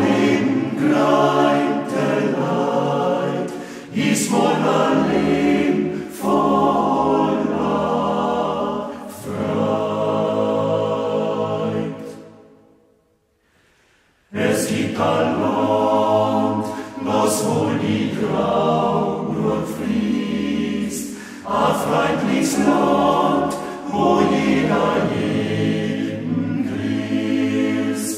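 Male voice choir singing; it falls silent for about two seconds midway through, then comes back in at full strength.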